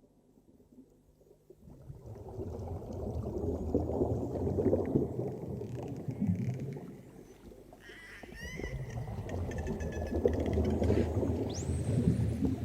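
Dolphins whistling and clicking over a low rumbling wash of water noise. The water noise swells in about two seconds in; short chirping whistles and rapid clicks come around the middle, and a sharply rising whistle near the end.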